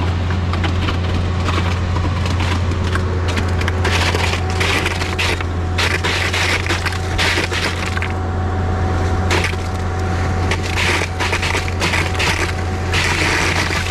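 Concrete boom pump truck running: a steady low drone with irregular clattering and crackling over it, and a faint steady whine through the middle.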